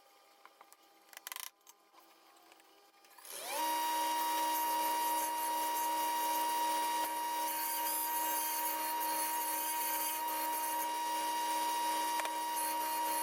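A few small clicks, then about three seconds in a table saw's motor switches on. Its pitch rises quickly as it spins up, and it then runs at steady speed with a high whine.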